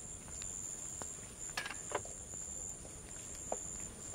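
Steady, high-pitched chirring of an insect chorus, crickets or similar, with a few light clicks and knocks scattered through it.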